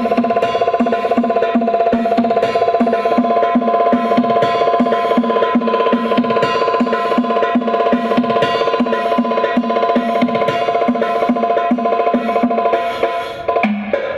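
Loud percussion-driven music played through a large carnival sound system during a sound check: a quick, steady drum beat over held tones. The music briefly drops out and changes just before the end.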